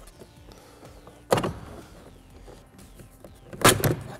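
Plastic clips of a Toyota Tundra's master window switch panel popping loose as the panel is pried up out of the door trim with a plastic trim tool. There are two sharp plastic pops about two and a half seconds apart, and the second comes with a few quick clicks.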